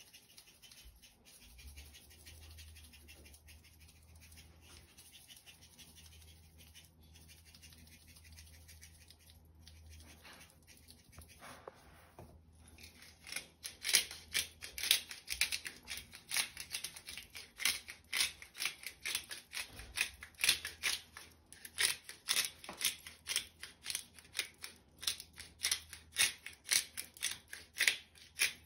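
Hand-twisted pepper grinder grinding peppercorns: faint at first, then from about halfway rapid, loud ratcheting clicks, several a second, that keep going.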